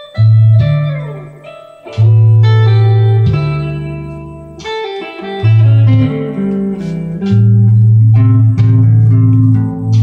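Electric guitar, a Les Paul Custom-style solid-body, improvising blues licks on the A pentatonic scale, with low notes ringing under the lead lines. About a second in, a note slides down in pitch.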